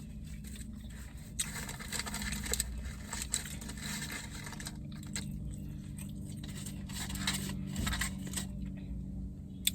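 Soft eating and handling noises, scattered small scrapes, crunches and clicks, as of chewing and food packaging being handled, over a steady low hum.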